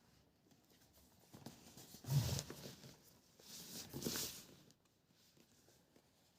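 Faint handling of a tablet's retail box and its packaging: a soft knock with a rustle about two seconds in, then a longer rustle of cardboard or plastic near four seconds in.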